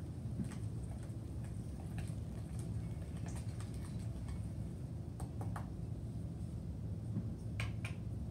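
A whisk stirring thick cornbread batter in a large mixing bowl, its wires knocking against the bowl in scattered, irregular clicks, over a steady low hum.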